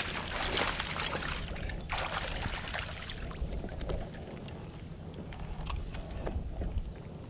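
Water rushing and splashing along a moving kayak's hull, louder for the first few seconds, over a low rumble of wind on the microphone, with a few light clicks.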